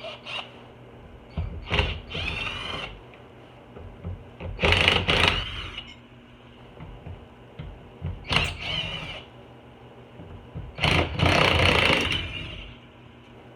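Handheld power tool backing out the Jeep Wrangler JK's loosened door hinge bolts: four short runs of a whirring motor, each one to two seconds long, the second the loudest.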